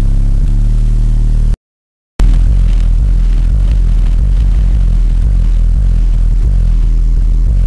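Bass-heavy music played very loud through two 12-inch Ground Zero subwoofers in a car, the low notes dominating. About one and a half seconds in, the sound cuts out completely for about half a second, then comes straight back.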